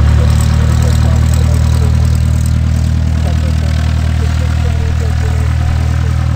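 Reims Cessna F172M Skyhawk's four-cylinder Lycoming O-320 engine and propeller running at low taxi power, a steady low engine note with an even pulsing beat, fading slightly as the plane taxis away.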